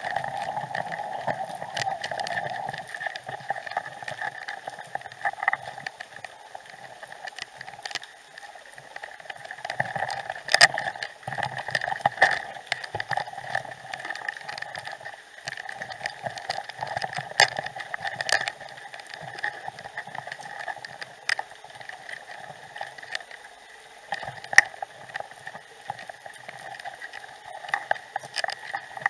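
Underwater sound picked up by a submerged camera: a steady rushing hiss with scattered sharp clicks and crackles.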